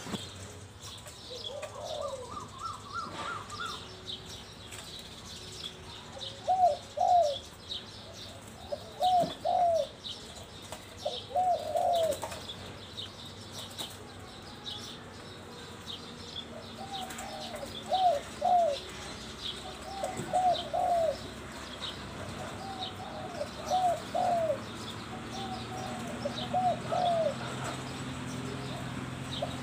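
Spotted dove cooing: phrases of two or three low, rolling coo notes, repeated every few seconds. Small birds chirp faintly throughout.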